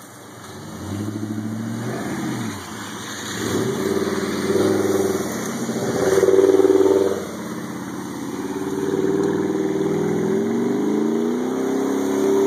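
GMC 2500HD's 6.0-liter Vortec V8 revving up and down several times while mudding, loudest about six seconds in as the truck passes close by, then one long climbing rev near the end as it pulls away throwing dirt.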